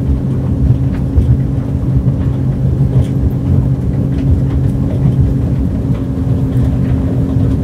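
Mercury 150 Pro XS outboard running flat out at top speed, about 5500 rpm, heard aboard the planing boat: a steady engine tone over a dense rushing rumble, holding pitch without rising or falling.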